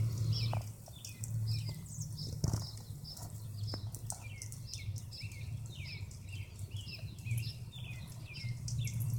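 Small birds chirping over and over in short, quick notes, two or three a second, over a steady low rumble.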